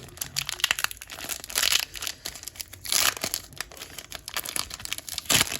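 Foil wrapper of a Pokémon card booster pack crinkling and being torn open: a run of sharp crackles, with louder rips about a second and a half in, about three seconds in, and near the end.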